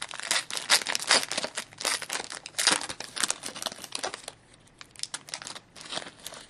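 Foil wrapper of a Panini Luxury Suite hockey card pack being torn open and crinkled by hand: a dense run of crackling for about four seconds, then fainter, scattered crinkles as the cards are drawn out of the opened wrapper.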